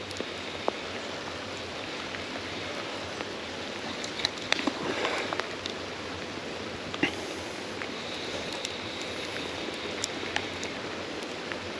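River water running steadily, with a cluster of short sharp clicks and splashes about four to five seconds in and a few single clicks later.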